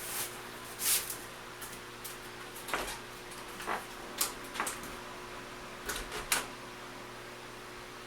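A few scattered brief knocks and rustles, about eight in all, with the last two close together near six seconds in, over a steady low hum.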